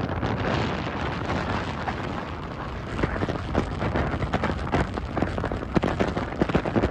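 Wind rushing over the microphone from a moving car at road speed, with irregular buffeting thumps that come more often in the second half.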